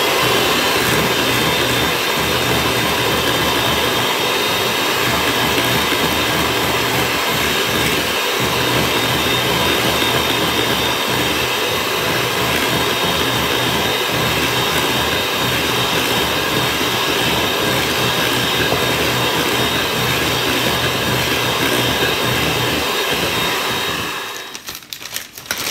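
Kenwood electric hand mixer running steadily, its beaters whipping cold cream with mascarpone in a stainless steel bowl. It switches off about a second and a half before the end.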